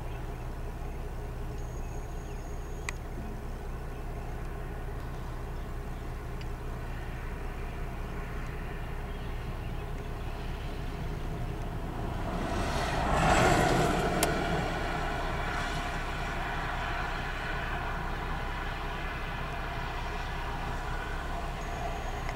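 Road vehicle noise: a steady low rumble, with one vehicle passing about halfway through, swelling up and fading away over a few seconds.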